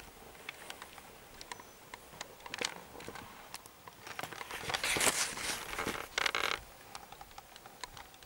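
Soft rustling with scattered small clicks and ticks, and a louder rustle lasting about two seconds just past the middle.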